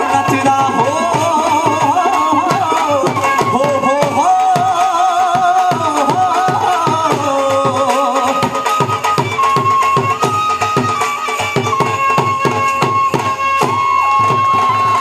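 Instrumental passage of Punjabi bhangra folk music: a steady, fast drum beat under a wavering melody line, which settles into a long held high note over the last few seconds.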